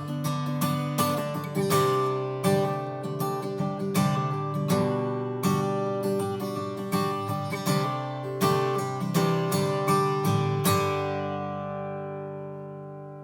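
Martin OM-28 Reimagined steel-string acoustic guitar strumming chords, the strokes coming about twice a second. The last chord is left to ring out and fade near the end.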